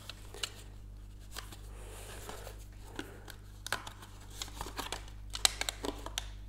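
A cardboard milk carton and plastic drinking straws being handled: scattered light clicks, taps and rustles, more frequent in the second half.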